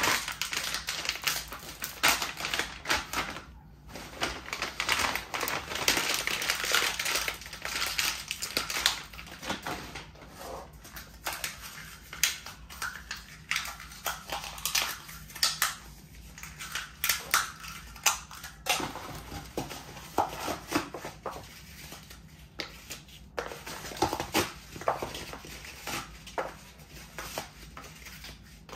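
A foil snack packet crinkling as it is crushed underfoot, and paper pulp egg cartons being torn and crushed by hand. The crackles and crunches come thick and irregular, busiest in the first ten seconds or so, then sparser.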